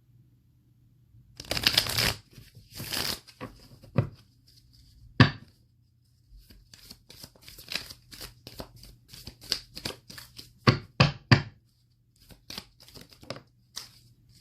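A deck of oracle cards being shuffled by hand: two longer riffling rushes about two and three seconds in, then many quick, light card flicks and taps.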